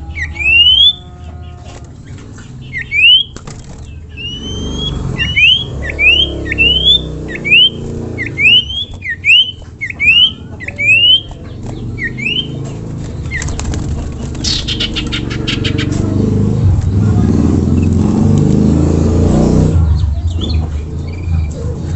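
Common iora (cipoh) giving a long run of short, sharply rising whistles, about one and a half a second, followed a little past halfway by a fast rattling chatter. Under the second half a low rumble builds and then drops off near the end.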